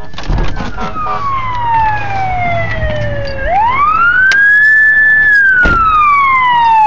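Fire engine siren wailing as it approaches: the pitch falls slowly, sweeps quickly back up about three and a half seconds in, holds briefly, then falls slowly again. A few short knocks are heard alongside it.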